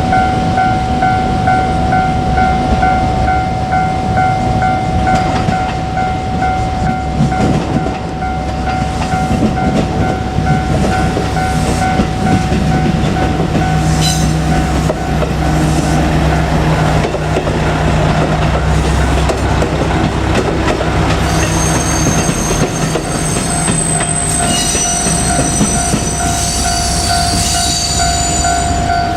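A level-crossing alarm rings in repeated pulses over a steady tone while a JR Kyushu KiHa 200 diesel railcar passes. Its engine and wheel noise swell through the middle, and high wheel squeal comes in during the last several seconds before the alarm cuts off.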